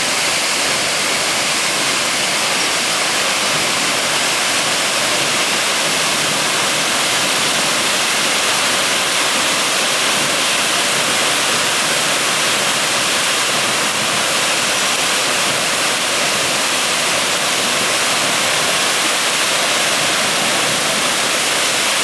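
Waterfall pouring down a rock face into a pool: a steady, unbroken rush of falling water.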